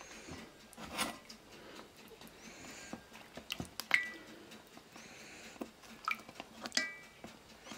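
Dough pastries frying in a pan of hot oil, with small crackling clicks. Metal tongs clink sharply against the pan twice with a brief metallic ring, the louder about four seconds in and the other near the end.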